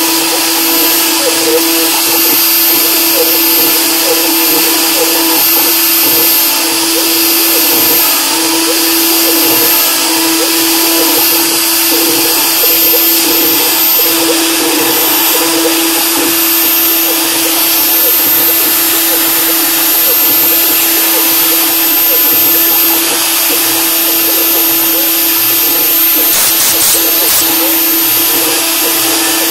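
MicroRob CNC milling machine's spindle running steadily while a fine end mill engraves lettering into an aluminium block: a steady whine with the cutting noise of the bit in the metal. A few quick clicks near the end.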